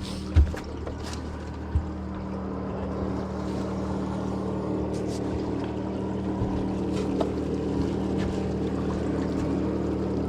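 Boat motor running steadily with an even hum. Two or three short knocks come in the first two seconds.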